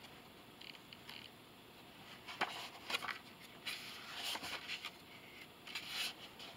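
Pages of a book being turned and handled: faint papery rustles, a cluster of them from about two to five seconds in and another near the end.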